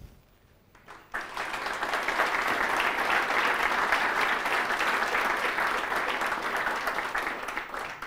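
Audience applauding, starting about a second in and thinning out near the end.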